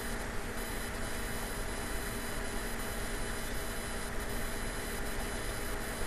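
Steady hiss with a low electrical hum, the background noise of a voice recording, with no speech over it.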